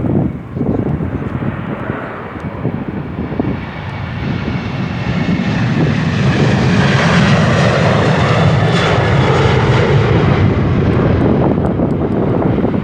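Jet airliner's engines passing close by, the noise building over several seconds, loudest from about halfway through, and staying loud. Near the start, wind buffets the microphone.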